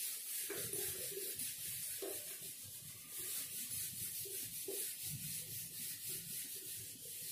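Whiteboard eraser rubbing across a whiteboard, wiping it clean in repeated back-and-forth strokes.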